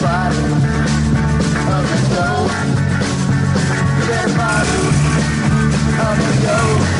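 Rock music soundtrack playing steadily.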